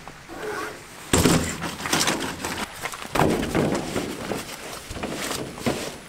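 Folding camp cot being set down and shifted into place: a heavy thump about a second in and another knock around three seconds, with the frame clattering and scraping and fabric rustling in between.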